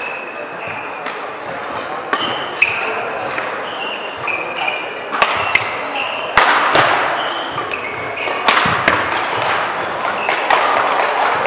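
Badminton rally in a sports hall: sharp hits of rackets on the shuttlecock, the hardest about six and eight seconds in, among quick squeaks of court shoes on the floor.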